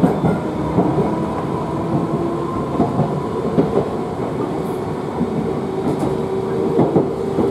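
London Underground 1973 Stock train running at speed, heard inside the carriage: a constant rumble with a steady hum and irregular clicks and knocks from the wheels on the track.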